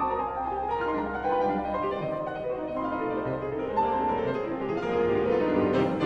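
Background instrumental music with piano to the fore.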